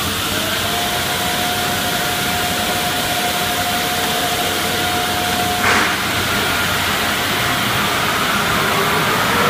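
Tunnel car wash equipment running: water spraying from an overhead arch onto a car over a steady machine noise, with a steady whine through most of it that stops near the end and a short burst of hiss about six seconds in.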